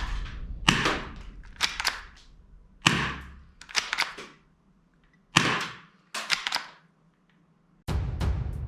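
Toy cap gun firing: about six sharp bangs, roughly a second apart, each with a short fading ring. Music comes in near the end.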